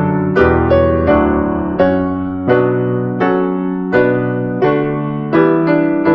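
Piano playing a hymn tune in slow, evenly paced chords. A new chord is struck about every three-quarters of a second and left to ring and fade: the hymn's introduction before the congregation sings.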